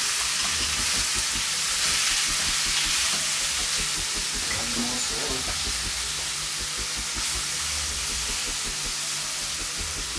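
Meat frying in oil in a pan: a steady sizzle.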